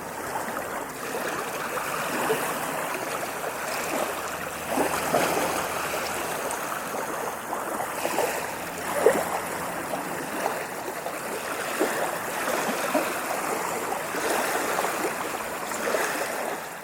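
Small ocean waves washing and splashing without a break, with many short splashes and a sharper one about nine seconds in.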